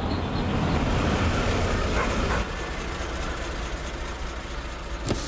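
Car engines idling with a steady low rumble, a little louder for the first two and a half seconds and then a step quieter, with a single click near the end.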